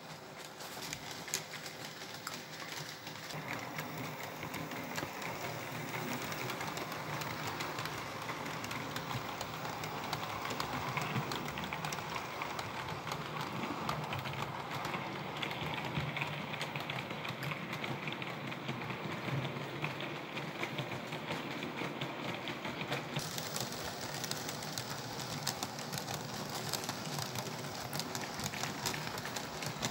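Märklin model train running along metal track: a steady whirring rattle of its small motor and wheels, growing louder over the first several seconds.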